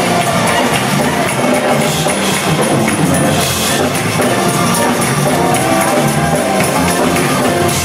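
Choir singing an upbeat Caribbean-style gospel praise song over drums and percussion.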